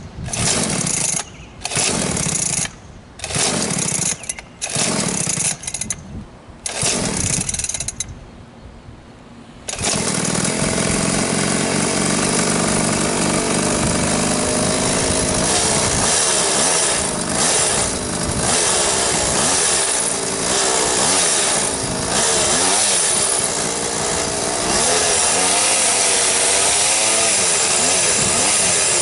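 Small two-stroke engine of a home-built quarter-scale RC car, revved in short separate bursts with its pitch falling after each. From about ten seconds in it runs without a break, its pitch rising and falling as the car drives.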